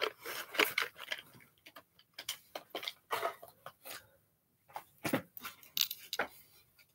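Scattered light clicks, taps and rustles of small objects being handled and set about, irregular and spaced out.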